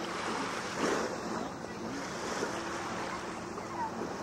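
Small waves lapping in shallow lake water, with wind on the camcorder microphone; a brief louder rush about a second in.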